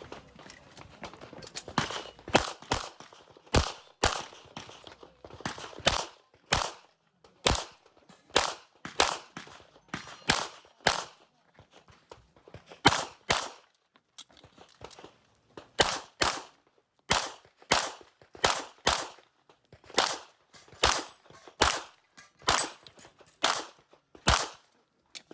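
Pistol shots fired in quick pairs, two shots about half a second apart, pair after pair with short gaps between, as in a practical-shooting stage.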